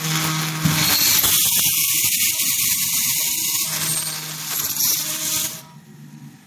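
Automatic floor wiper making machine running: a loud, steady hissing mechanical noise over a low hum, which drops away suddenly about five and a half seconds in.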